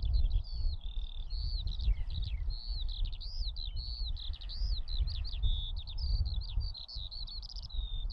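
Skylark singing its continuous, rapid high warble of quickly rising and falling notes without a break, over a low rumble of wind on the microphone.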